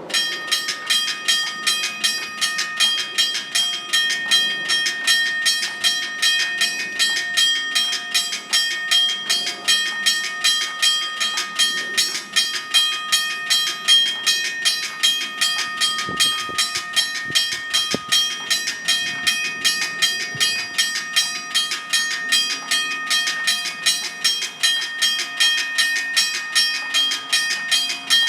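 Railroad crossing bell ringing in a fast, even rhythm of struck strokes, each stroke ringing on into the next.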